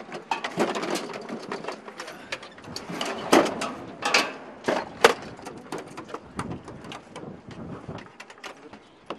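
Rapid, irregular metallic clicking and clanking of equipment being handled, with the loudest knocks in the first half, thinning out toward the end.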